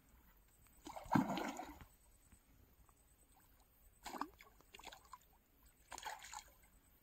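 Hooked fish thrashing at the water surface against a taut fishing line, splashing in three short bursts: the loudest about a second in, two smaller ones around four and six seconds.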